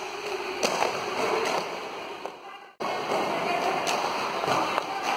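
Quad roller skate wheels rolling on a rink floor, a steady hiss with a few sharp clacks of the skates striking the floor. The sound drops out briefly about halfway through.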